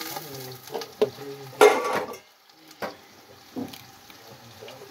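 Sliced onions and carrots frying in an aluminium pot on a charcoal stove, with a light sizzle and a few metal clanks against the pot, the loudest about a second and a half in.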